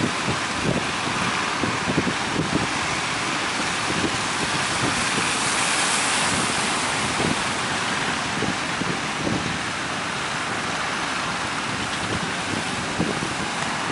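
Strong wind buffeting the microphone in irregular gusts over a steady rush of sea and waves.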